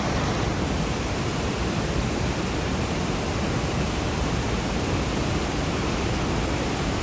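A waterfall's cascading water, a dense, steady rush of noise.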